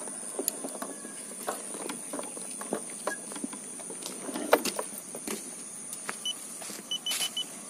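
Footsteps and rustling on a grassy path, with scattered small knocks, over a steady high hiss. A few short high chirps come near the end.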